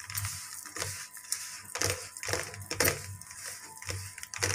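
A hand kneading oily ground spice masala around a steel plate: irregular squishing and scraping strokes against the metal, a few a second.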